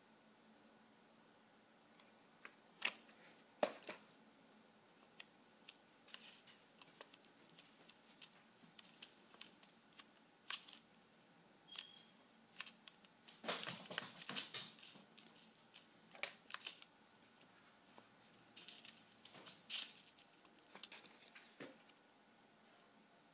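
Scattered light clicks, taps and crinkles of a clear plastic acetate sheet being handled and pressed down onto a hot-glued craft shaker, with a denser flurry of rustling about fourteen seconds in.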